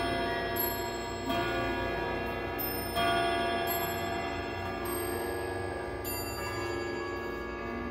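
Howard Miller Jennison triple-chime wall clock sounding on its chime rods: a series of struck metallic notes, each ringing on and overlapping the next.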